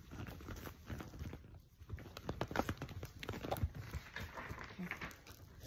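Irregular light taps and knocks with some faint rustling, like objects being handled on a table.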